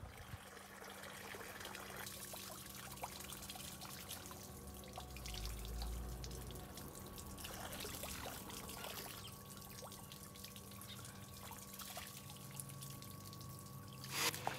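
Water from a garden hose pouring over a steel karambit blade and splashing onto concrete as the rusty blade is rinsed after its soak. A sharp click near the end.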